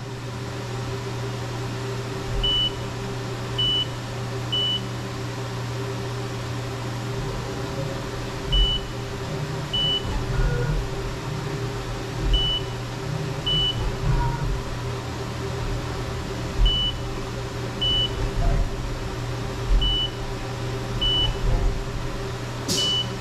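Haas VF2 SS CNC vertical mill running an automatic probing cycle: a steady machine hum throughout, broken by about a dozen short high beeps, mostly in pairs about a second apart, as the spindle probe touches off the block's surfaces to find work zero.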